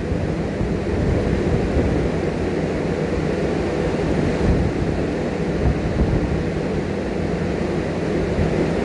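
Wind buffeting the microphone at the seashore: a steady low rumble, with the wash of the sea beneath it.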